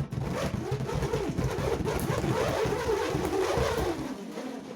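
Two hexagonal steel nuts rattling and spinning around inside a small inflated rubber balloon as it is shaken and turned, making a loud buzzing rattle with a wavering hum that eases off near the end.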